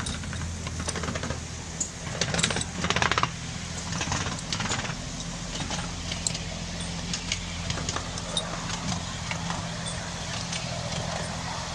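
Miniature railway train running along its track, heard from a riding car. The locomotive gives a steady low hum under clicks and rattles from the wheels and cars, with a louder rattling rush about two to three seconds in.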